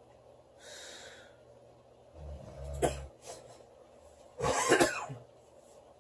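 A sleeping woman snoring: a soft hissing breath, then a low rattling snore about two seconds in that ends in a click, then a short loud snort about four and a half seconds in.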